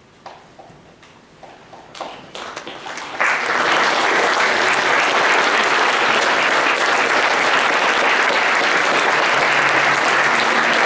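Audience applause: a few scattered claps at first, building, then full, steady applause from about three seconds in.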